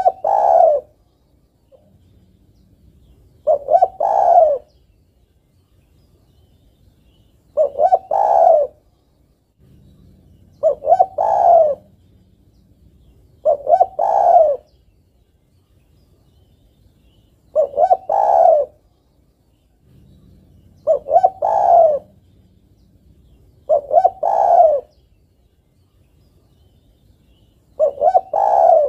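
Female spotted dove (tekukur) cooing, a short multi-note coo phrase repeated about every three to four seconds, about eight times. It is her call to a male, the kind of call used as a lure for trapping doves.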